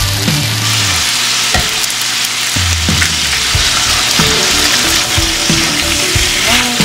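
Marinated beef and eggs sizzling in a hot cast-iron skillet, a steady hiss, with occasional clicks and scrapes of the tongs and egg against the pan.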